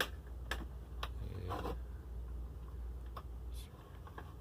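Sharp plastic clicks and brief handling rustle as a WiFi router's casing and parts are fitted back together, several separate clicks over a few seconds, under a low steady hum.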